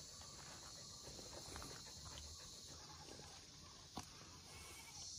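Faint, steady high-pitched chirring of crickets, with a few soft rustles and one sharp click about four seconds in.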